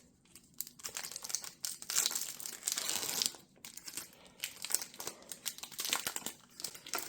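A trading-card pack wrapper being torn open and crinkled. Dense crackling rustles run for about three seconds, then shorter, lighter rustles follow as the pack is handled.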